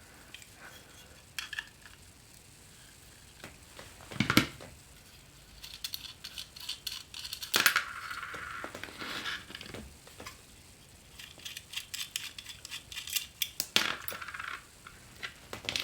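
An 11 mm wrench clicking and clinking on the jack nuts of a metal guitar-pedal enclosure as they are loosened, with scattered small metal taps. Two louder knocks come about four and seven and a half seconds in, and there is brief metallic ringing.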